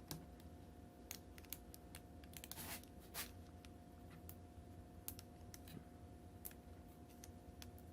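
Faint scattered clicks and taps of fingers working a laptop's small battery cable connector back into its socket, with a brief scrape about a third of the way in. A faint steady hum runs underneath.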